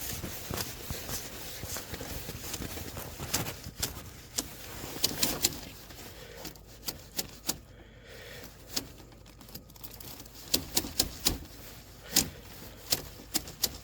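Electrical wire being pushed by hand down a PVC pipe: irregular clicks and taps of the wire against the pipe over a soft rustle of handling, bunched about five seconds in and again near the end.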